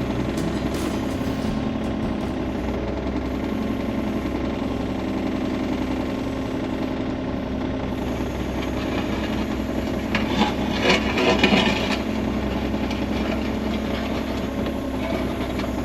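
Skid loader engine running steadily at idle, with a louder rattling stretch about two-thirds of the way through.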